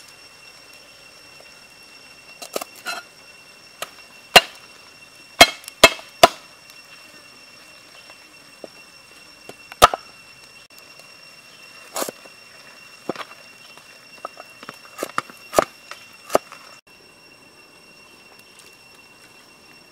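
A large knife chopping on a wooden chopping board: about fifteen sharp, irregular knocks of the blade striking the wood, stopping about three seconds before the end.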